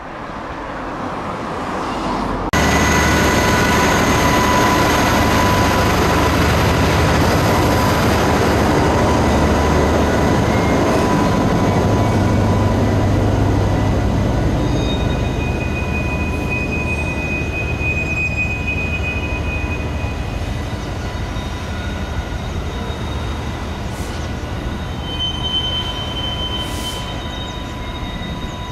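Class 60 diesel locomotive hauling loaded stone wagons: its eight-cylinder diesel engine drones low under the rumble of the wagons, with steady high-pitched wheel squeal from the curves. The sound jumps up sharply about two and a half seconds in, then eases off a little through the second half, with extra squeal tones coming and going.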